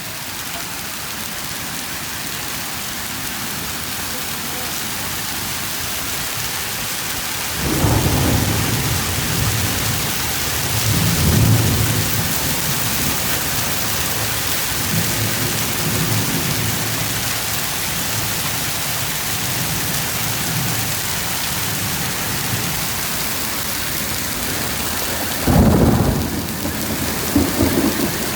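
Steady heavy rain with thunder. A rumble starts about a quarter of the way in and rolls on for several seconds, and a sharper, louder clap comes near the end.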